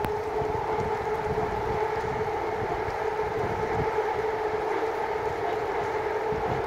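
A steady hum holding one pitch, with wind rumbling on the microphone.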